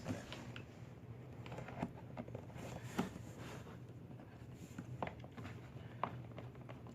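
A screwdriver turning screws in a car door trim panel: scattered light clicks and scrapes at irregular intervals, over a faint low hum.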